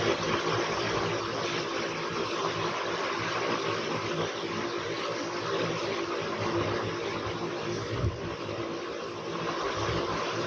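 Electric fan running steadily: an even whirr with a constant low motor hum beneath it.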